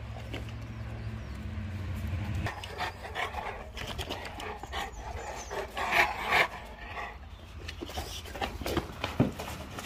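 Large Dogue de Bordeaux dogs panting with open mouths close by, loudest about six seconds in. A low steady rumble runs under the first couple of seconds and stops, and there is a sharp click near the end.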